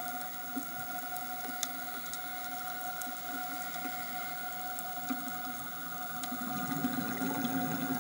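Underwater reef ambience recorded through the camera's housing: a steady hum of several tones with scattered faint clicks. A low rumble swells near the end.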